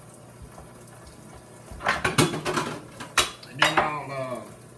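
Metal cutlery and dishes clattering: a burst of clinks and clanks about two seconds in, then one sharp clank about a second later.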